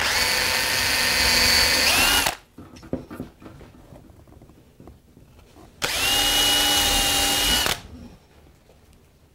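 Cordless drill boring pilot holes for screws into two clamped boards. It runs twice, about two seconds each time: once at the start and again about six seconds in. Each run is a steady whine, and the first rises in pitch just before it stops. A few light knocks come between the runs.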